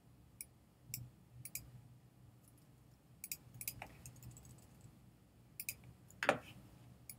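Scattered sharp clicks of a computer mouse, some in quick pairs, with one louder, duller knock about six seconds in.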